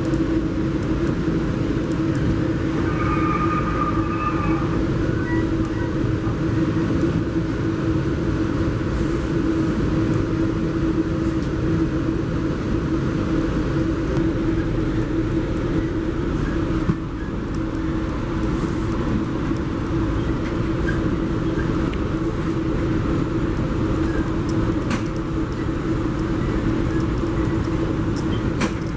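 Metrolink commuter train running at speed, heard from inside a passenger coach: a steady rumble of wheels on track with a steady hum. A faint high tone comes in briefly about three seconds in, and the level drops slightly about seventeen seconds in.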